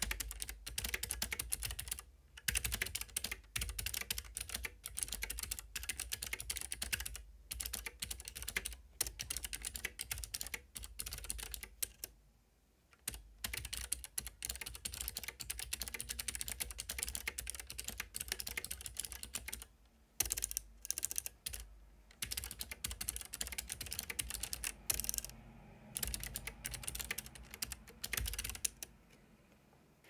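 Fast typing on a Keychron K3 low-profile mechanical keyboard fitted with clicky blue optical switches: a dense run of sharp key clicks, with brief pauses about twelve and twenty seconds in, stopping just before the end.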